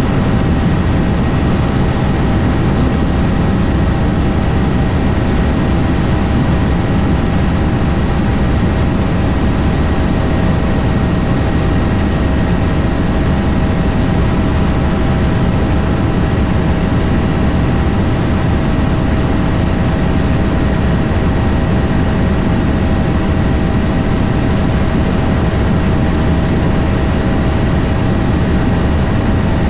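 Helicopter in flight: the loud, steady drone of rotor and engine, with a constant high whine above it.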